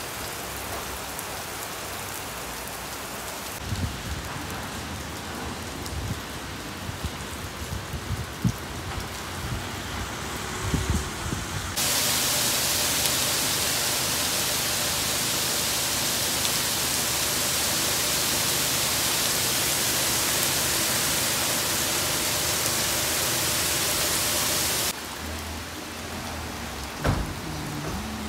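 Heavy rain falling on a paved street, a steady hiss of drops on wet stone. About twelve seconds in, the rain suddenly becomes much louder and fuller, then drops back just as suddenly near the end. There are a few low thumps in the first half and a short knock near the end.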